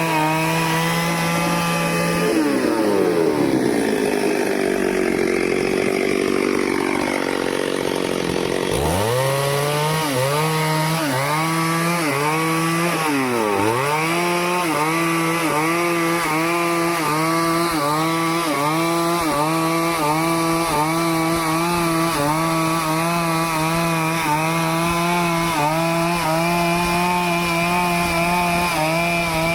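Stihl two-stroke chainsaw cutting teak, running at high revs. About two seconds in, its pitch sinks for several seconds as the chain bogs down in the wood, then climbs back. After that it dips briefly about once a second under the load of the cut.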